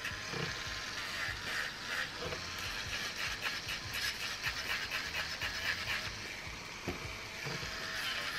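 Electric nail drill running at low speed with a sanding bit, filing down a gel nail extension: a steady whir with the soft rasp of the bit grinding the cured gel.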